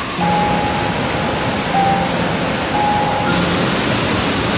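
Steady rush of water: rain falling and a rocky mountain stream running over small cascades, an even hiss with no single strokes standing out.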